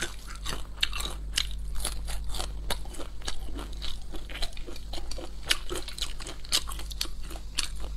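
A person chewing crunchy food close to a clip-on microphone: a quick, irregular run of crisp crunches and mouth sounds.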